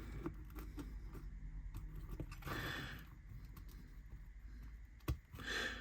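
Quiet bench handling of laser-cut kit parts: scattered small clicks and taps, a sharper knock about five seconds in, and two short breathy hisses, one about two and a half seconds in and one near the end.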